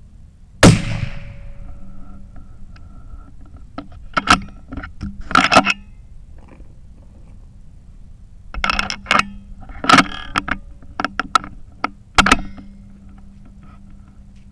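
A single .338 Lapua Magnum rifle shot just under a second in, its blast fading over about a second, followed by bursts of sharp metallic clicks and clatter from the bolt-action Ruger Precision Rifle's bolt being worked.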